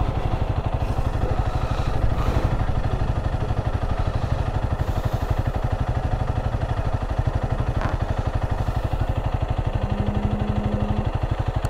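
Honda CRF300's single-cylinder four-stroke engine idling steadily with the motorcycle at a standstill. A brief, steady low tone sounds near the end.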